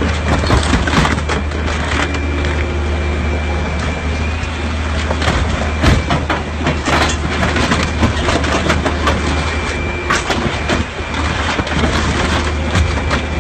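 A scrapyard grapple machine's engine runs with a steady low drone while its claw crushes a white sports car. The car's body panels crack and crunch in repeated sharp impacts, the loudest about six seconds in.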